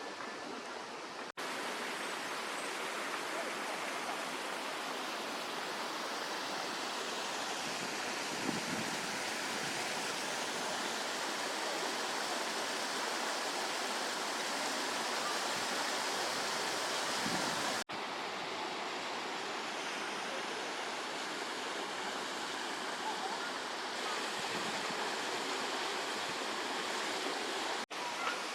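Steady rushing of running water, such as a stream or water feature. It drops out abruptly three times where the recording is cut.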